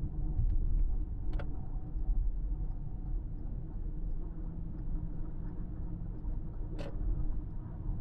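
Car driving at highway speed: a steady low rumble of road and engine noise, with two short clicks, one about a second and a half in and one near the end.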